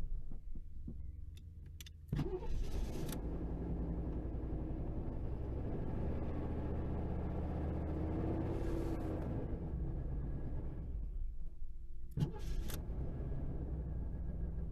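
Car engine idling, with the throttle opened so the engine note rises and falls. The engine is running again after running out of fuel, which the owner bets was the trouble. There are sharp clicks about two seconds in and again near the end.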